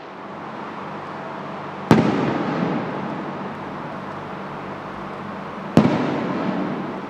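Aerial firework shells bursting overhead: two sharp booms about four seconds apart, each followed by a long rolling echo that slowly dies away.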